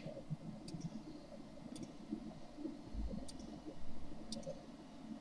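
About four faint, separate computer mouse clicks, a second or so apart, over low room noise.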